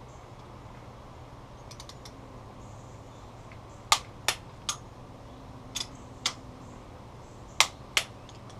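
Click-type torque wrench tightening cylinder head bolts to 45 foot-pounds on a Willys L134 engine: sharp metallic clicks in groups of two or three, starting about four seconds in, over a faint steady low hum.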